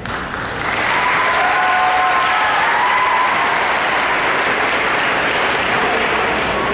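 Crowd applauding, swelling about half a second in and then holding steady.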